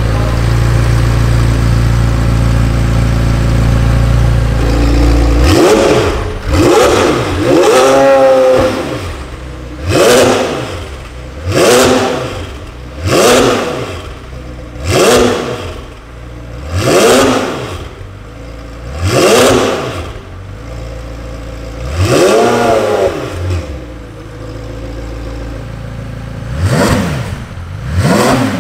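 McLaren 720S twin-turbo V8 breathing through a full straight-pipe Capristo exhaust, running loud and steady at first, then blipped about a dozen times, each rev rising and falling sharply in pitch.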